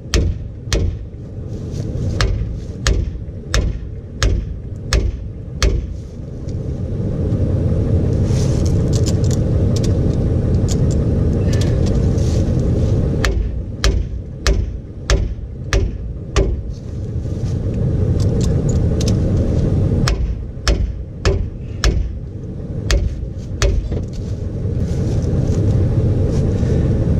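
Hammer blows ringing on a rusted trailer hitch, in three runs of about one to two strikes a second, driving the seized hitch out. Between the runs a steady low rumble fills in.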